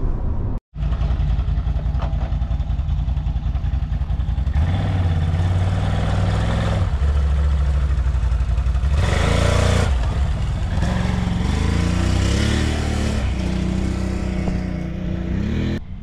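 An ATV engine revving up and easing off as it is ridden, its pitch rising and falling several times. A brief silent break comes just under a second in.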